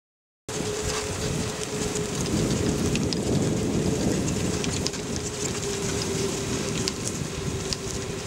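Golf cart rolling across grass: a steady rumble of tyres on turf with a steady hum running under it and faint scattered ticks, starting suddenly about half a second in.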